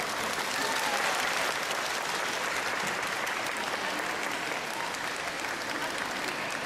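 Audience applauding, the clapping swelling about half a second in and then holding steady.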